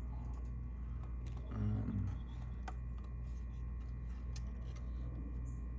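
A steady low electrical hum with a few scattered light clicks and taps, typical of small RC car parts being handled on a workbench, and a brief low murmur just under two seconds in.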